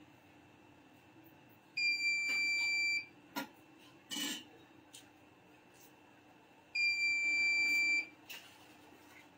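Two long electronic beeps, each a steady high tone lasting just over a second, about five seconds apart. A sharp click and a short burst of noise come between them.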